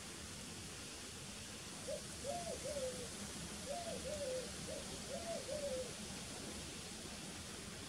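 A bird calling over a steady hiss: two short series of low notes, first three and then about four, each note rising and falling in pitch.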